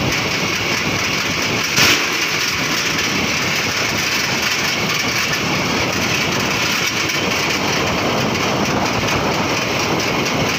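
Honda motorcycle running steadily, with a constant rushing noise as it rides. A brief louder knock comes about two seconds in.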